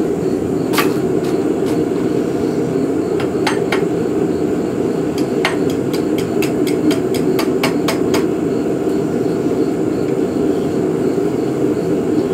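Hand hammer tapping a steel hook-knife blade on the horn of an anvil, about fifteen light strikes in short groups, bending the blade into its hook curve; the strikes stop about eight seconds in. A steady low hum runs underneath.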